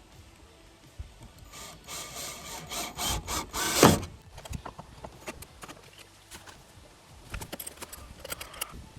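Hand work on wood and metal hardware: rubbing and scraping for a couple of seconds, ending in a loud sharp knock about four seconds in, then scattered light clicks and taps.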